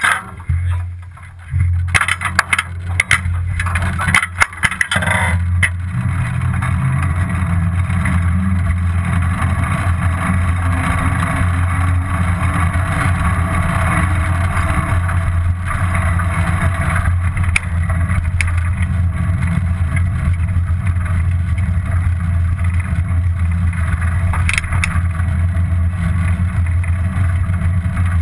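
Steady rumble of wind and tyre noise from a bicycle on the move. In the first few seconds there are a series of knocks and rattles.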